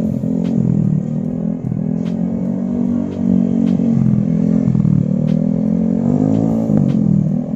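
Yamaha NMAX 175cc scooter's single-cylinder engine through a Pro Liner aftermarket racing exhaust, revving up and down as the throttle is rolled off and back on through corners. The pitch dips and climbs again about four times.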